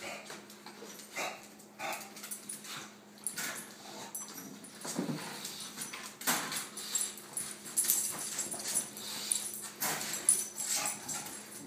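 Two bulldogs, a puppy and an adult, playing: a string of short, irregular whines and grunting noises, louder in the second half.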